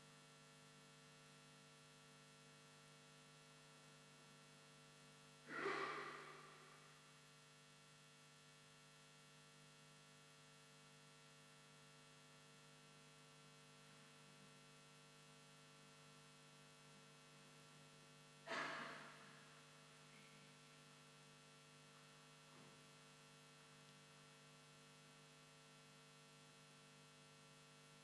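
Near silence with a faint steady electrical hum on the audio feed, broken twice by a brief sharp noise that fades away over about a second.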